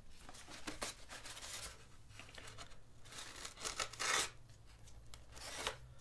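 Dried paper being torn and peeled off a polystyrene foam duct panel in a series of short rips, the loudest about four seconds in.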